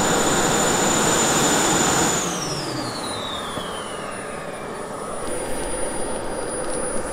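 JetCat P-400 gas turbines of large-scale model Alpha Jets running with a steady high whine and exhaust rush. About two seconds in, a turbine is shut down and its whine falls away smoothly in pitch as it spools down, and the overall sound gets quieter.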